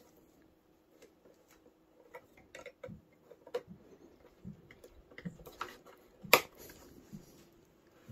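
Hard plastic parts of a Megazord toy clicking and knocking as the knee armour pieces are pushed and snapped onto its legs. The clicks are small and scattered, with one sharper snap about six seconds in.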